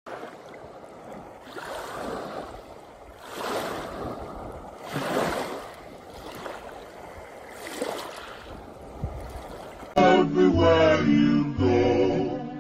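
Soft whooshing sound effects swelling and fading every second or two, then about ten seconds in, loud music starts abruptly.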